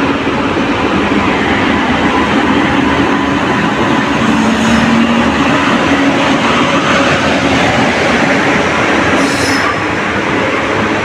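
Passenger train hauled by an electric locomotive passing close alongside the platform: a loud, steady rumble of steel wheels on the rails as the locomotive and then the coaches go by.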